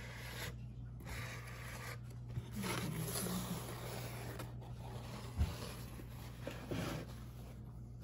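Soft rubbing and rustling handling noise from hands moving close to the microphone, over a low steady hum. There is one light knock about five seconds in.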